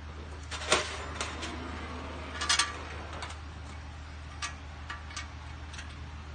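Metal parts clinking and tapping as hub bolts are test-fitted into freshly drilled holes in the hub assembly: two louder clinks, about a second in and near the middle, then a few lighter ticks, over a steady low hum.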